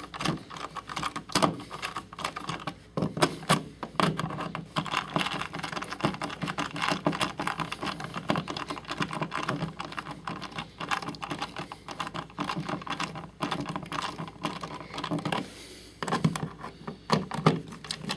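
Irregular clicking and scraping as a duplex wall receptacle is pushed into a metal electrical box and its mounting screws are driven in with a hand screwdriver.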